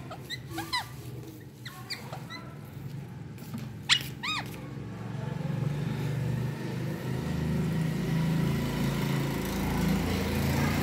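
Rose-ringed parakeet giving several short chirps and squawks that sweep up and down in pitch, with a sharp click about four seconds in. From about halfway a low, steady engine hum comes up and grows louder.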